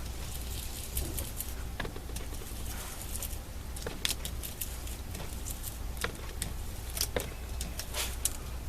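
An ink applicator is dabbed and pounced through a plastic stencil onto an index card, making soft, irregular taps and light clicks, with a low steady hum underneath.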